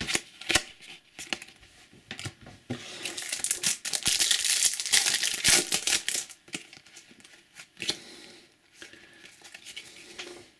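A foil trading-card booster packet being torn open and crinkled: a dense crackling for a few seconds in the middle, with scattered light clicks from cards being handled before and after.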